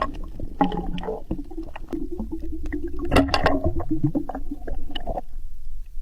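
Muffled water sounds heard underwater: gurgling and water movement with scattered clicks and knocks, cutting off abruptly about five seconds in.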